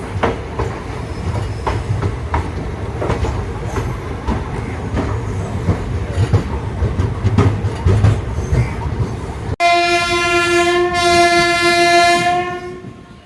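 Passenger train running on the rails: a low rumble with repeated clicks of the wheels over rail joints. About ten seconds in the sound cuts abruptly to a train horn, one steady note held for about three seconds before fading.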